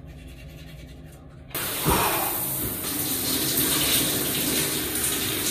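Overhead shower spraying water onto a person, a steady rush of water that cuts in suddenly about a second and a half in.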